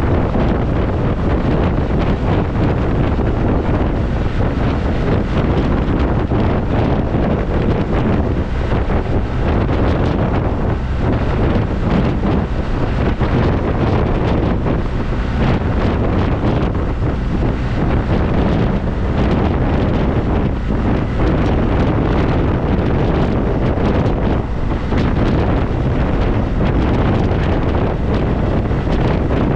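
Wind rushing over a GoPro's microphone on a BMW R1200RT motorcycle at riding speed: a steady, loud rumble that covers the bike's own sound.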